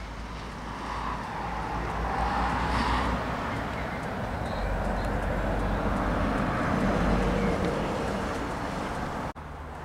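Vehicle engine noise, swelling and fading over a low rumble, with a sudden break near the end.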